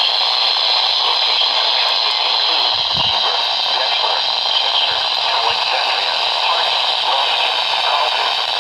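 Steady, loud hiss of static from a weather radio receiver.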